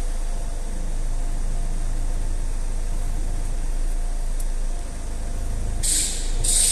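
Alfa Romeo 159 JTDm diesel engine idling, with two short hissing squeals close together near the end: the belt-like noise that comes on with the steering wheel turned to full lock.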